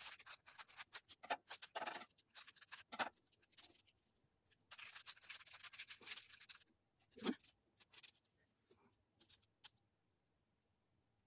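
Small clear plastic zip baggie crinkling and rustling in bursts as it is handled and opened, with a few faint ticks near the end.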